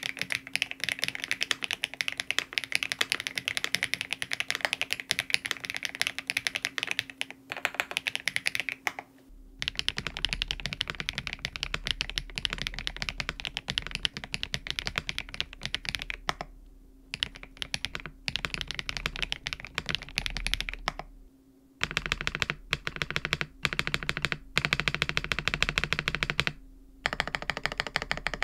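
Continuous typing on a QSENN DT35 87 mechanical keyboard with factory-lubed HMX Violet linear switches, a PC plate, full foam and PBT keycaps: a rapid stream of key clicks and bottom-outs. It breaks off briefly a few times, and the tone of the typing changes after the pauses at about 9 and 22 seconds.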